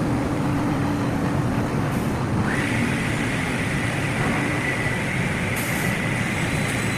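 CNC block-cutting saw running: a steady mechanical noise, with a high steady whine coming in about two and a half seconds in.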